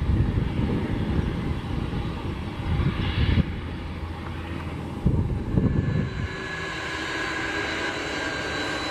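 Boeing 747-400 jet engines running at taxi power: first an uneven low rumble that swells and fades, then, after about five and a half seconds, a steadier engine whine with a thin high whistle.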